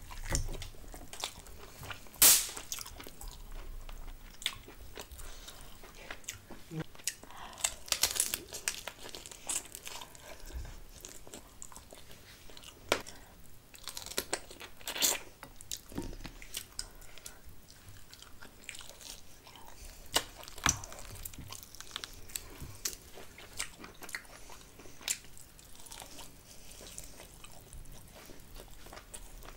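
A person chewing and biting chicken masala and rice eaten by hand, close to the microphone, with many short sharp mouth clicks and smacks; the loudest comes about two seconds in.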